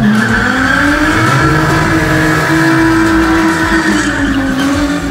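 A car's engine held at high revs during a burnout, its tyres spinning, the pitch wavering slowly up and down.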